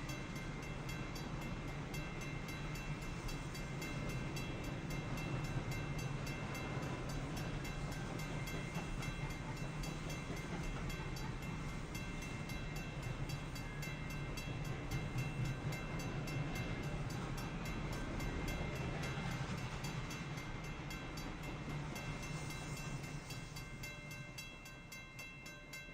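Intermodal freight cars rolling past with a steady low rumble, while a railroad crossing bell rings over and over at an even pace. The rumble and bell fade near the end.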